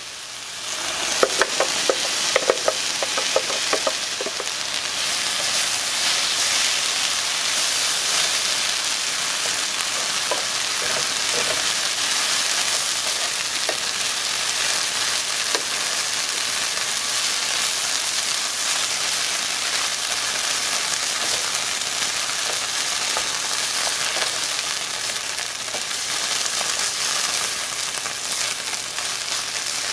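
Chili sauce sizzling in a hot frying pan of fried soy crumbles, stirred and scraped through with a wooden spoon. The sizzle swells about a second in and then holds steady, with a few knocks of the spoon in the first few seconds.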